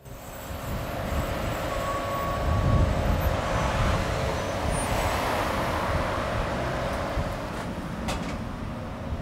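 Street traffic ambience: a steady road rumble, with a passing vehicle swelling louder through the middle.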